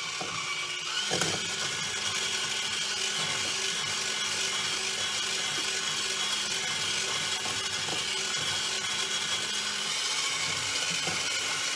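Electric hand mixer running steadily, its beaters whipping an egg, sugar and lemon-juice mixture in a double boiler until it thickens.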